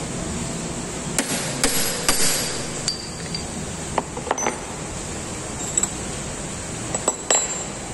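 A series of sharp metal-on-metal clinks and taps, some ringing briefly: a small hammer tapping steel lathe tooling and the tool pieces knocking together while the drill chuck is changed over. There is a steady hiss of heavy rain underneath.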